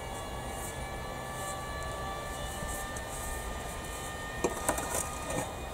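Steady drone of an aircraft passing overhead, its tones sinking slowly in pitch. A few sharp knocks and scrapes of a spade working compost in a wheelbarrow come near the end.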